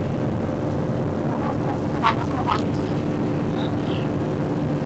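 Airliner jet engines heard from inside the passenger cabin during take-off: a steady, loud drone with a constant low hum. A brief sharper sound rises over it about two seconds in.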